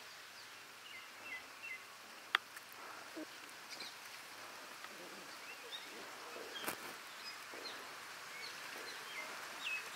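Quiet outdoor ambience with small birds chirping now and then. Two sharp clicks, one a little over two seconds in and one at about seven seconds.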